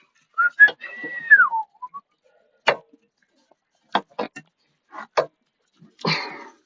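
A short high-pitched call that holds and then falls in pitch about a second in, followed by a few sharp, separate metallic clicks and clinks of bolts and hand tools being handled.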